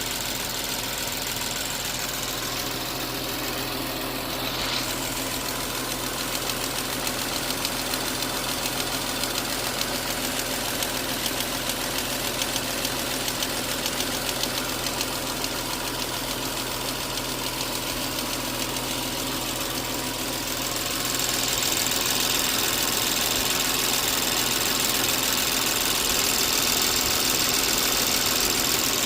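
Audi engine running with an abnormal noise: a fast, even ticking over its steady hum. About two-thirds of the way through it grows louder, with more hiss.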